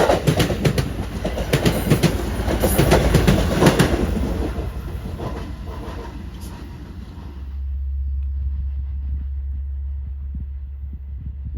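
Train wheels clicking rapidly over rail joints, the clickety-clack of a passing train, fading away over the first half. A low steady rumble takes over for the last few seconds.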